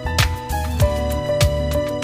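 Background music with a steady beat: a deep drum hit about every 0.6 seconds under held notes.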